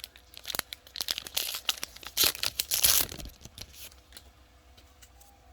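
Foil wrapper of a trading-card pack being torn open and crinkled, a run of short crackling tears lasting about three seconds, loudest near the end, then a few faint clicks.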